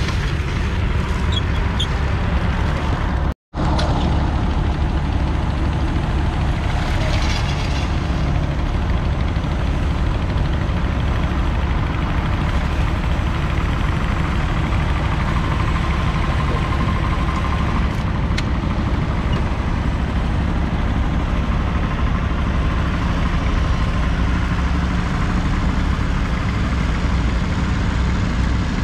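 A 1961 Massey Ferguson 65 tractor's 3.3-litre four-cylinder diesel engine running steadily, pulling a two-furrow reversible plough. The sound cuts out for an instant a few seconds in.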